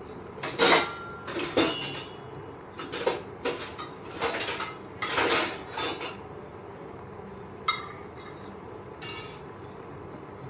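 A metal utensil clattering and scraping against a cooking pot: a run of irregular strikes through the first six seconds, then a sharp click and one more clatter later, over a steady hiss.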